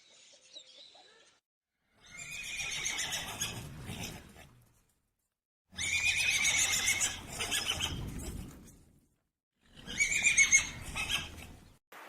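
Horse whinnying three times, each a long, shaky call of two to three seconds, with brief silences between them.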